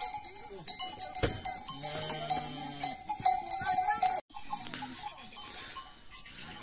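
A flock of goats and sheep bleating now and then, over the steady clinking and ringing of bells on the animals.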